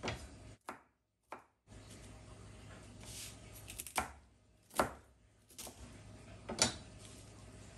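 Santoku knife chopping celery on a wooden cutting board: about seven separate sharp knife strikes on the board, spaced roughly a second apart.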